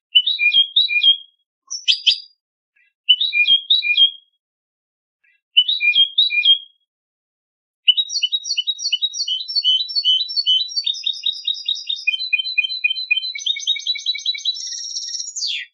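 European goldfinch singing a contest-style song from a tutor recording. Three short twittering phrases come first, then from about eight seconds in a long unbroken song of rapid repeated notes in changing series, ending in a quick falling slide.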